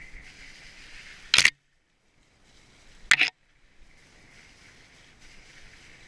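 Steady rolling noise of a mountain bike on a wet trail, picked up by a helmet-mounted camera's microphone. It is broken twice, about a second and a half apart, by a loud, sharp crackle, and each crackle is followed by the sound cutting out almost completely for a moment.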